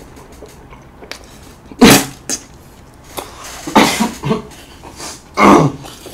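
A man coughing hard three times, about two seconds apart, each loud cough followed by a smaller one, on a mouthful of spicy chicken.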